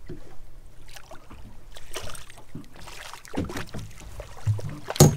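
Irregular knocks and water noise on a fishing boat as a hooked fish is brought up and handled, with one loud knock about five seconds in.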